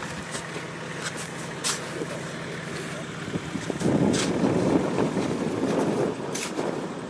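A 4x4's engine idling steadily, with a few sharp knocks as a steel bar chips at packed snow and ice by the stuck wheel. About four seconds in, a louder rough rumble takes over for a couple of seconds.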